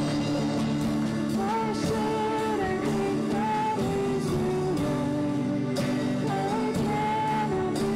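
Live worship band playing a song on drum kit, grand piano, violin and acoustic guitar, with a gliding melody line over steady chords.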